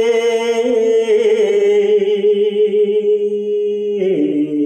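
A man chanting Khmer verse in the mournful pilap recitation style, holding one long note with a slight waver, then dropping to a lower note about four seconds in.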